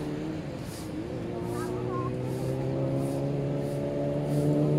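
A motor engine running steadily, its pitch slowly rising and growing louder toward the end, with faint swishes about once a second.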